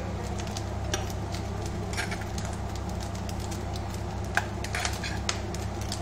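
A few sharp clinks of kitchenware, about five scattered through, over a steady low hum.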